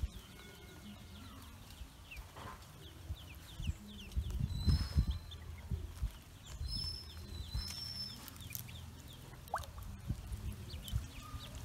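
Ducklings peeping over and over, many short falling peeps, as they paddle in a shallow plastic tub of water. Low thumps and splashes come now and then, loudest about halfway through.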